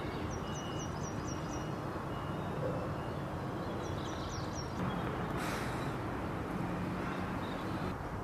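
Outdoor ambience: a steady low background rumble with small birds chirping, a quick run of about six high chirps near the start and another run of about four some four seconds in. A brief rushing hiss comes about five seconds in.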